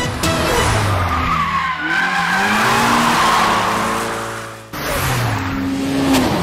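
Car engine revving hard, its pitch rising and falling as the tyres squeal through a drift on a tight corner. The sound breaks off abruptly about two-thirds of the way through, and the engine note resumes at once.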